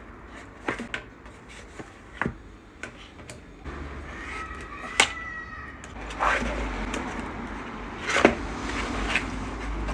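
Packaging being handled: scattered light taps and clicks with a few rustling and sliding swells, and a short squeak-like tone about five seconds in.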